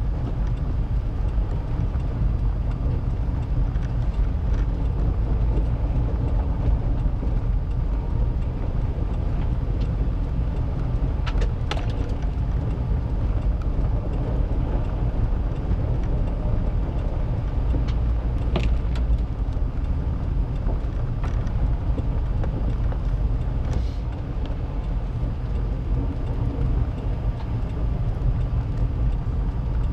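Steady low rumble of a car's engine and tyres on a wet, slushy road, heard from inside the cabin while driving. A few sharp ticks come through around the middle.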